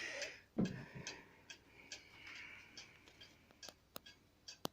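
Mayak weight-driven cuckoo clock ticking steadily as its pendulum swings, about two ticks a second. There is a soft thump about half a second in and a sharper click near the end.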